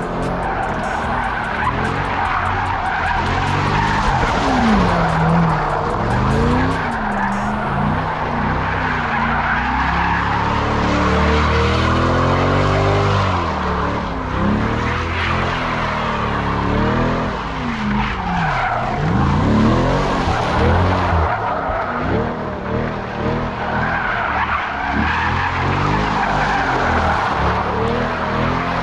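C8 Corvette's V8 revving hard, rising and falling again and again, as the rear tires squeal and skid through donuts and drifts with traction control fully off.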